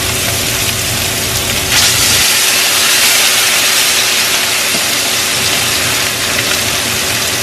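Bone-in ribeye steaks frying in hot cooking oil in a skillet: a steady sizzle that grows louder about two seconds in, as a second steak is laid into the hot pan.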